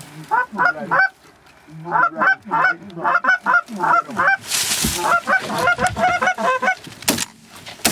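Canada geese honking in a rapid series of short calls as the flock comes in to land, with a brief rush of noise about halfway through. A shotgun shot cracks near the end.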